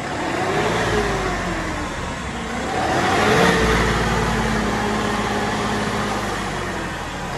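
New Holland 5620 TX tractor's common-rail diesel engine running, revved up and eased back twice in the first few seconds, then held at a steady speed.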